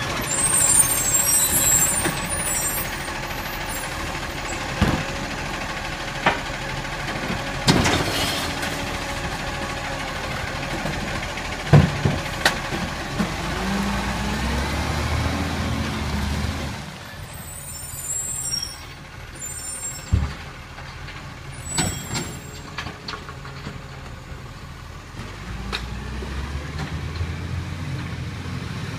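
Side-loading garbage truck at work: the diesel engine running with air brakes hissing near the start and again partway through, several sharp bangs and clanks as the bins are handled, and the engine rising in pitch as the truck pulls away and the sound drops back.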